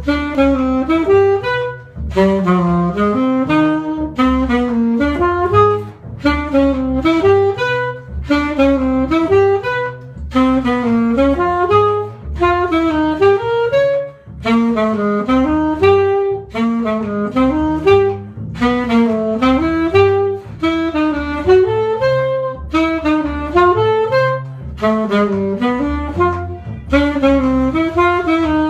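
Jazz arpeggio exercise with chromatic approach notes, played as quick runs of separate notes that climb and fall in phrases of about two seconds, each followed by a short break, over a low accompaniment.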